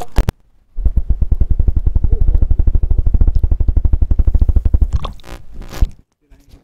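Stream water rumbling against a submerged action camera and its microphone, as a rapid, even pulsing of low thuds, about a dozen a second. About five seconds in it turns to a rougher splashing as the camera is handled near the surface.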